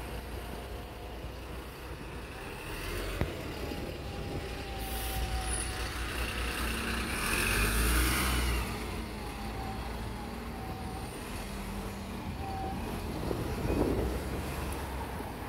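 Wright Pulsar single-deck bus running at a stop, then pulling away: its engine revs up about seven seconds in with a loud hiss of air at the same moment, and a whine rises and falls as the bus moves off.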